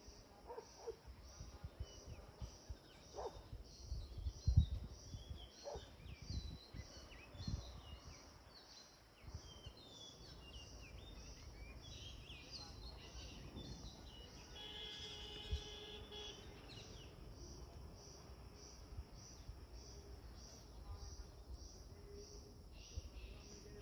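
Outdoor nature ambience: an insect chirping in an even pulse about twice a second, with birds chirping over it through the first half. A longer drawn-out call comes about fifteen seconds in, over a low rumble.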